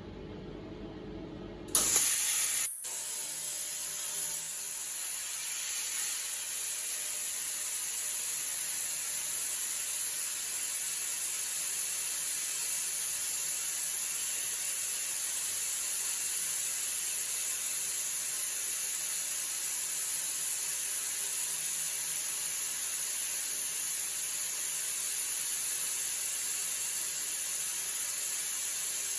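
Plasma cutter torch striking its arc about two seconds in, after a low hum, with a sudden loud hiss. It then holds a steady, high-pitched hiss as it cuts metal.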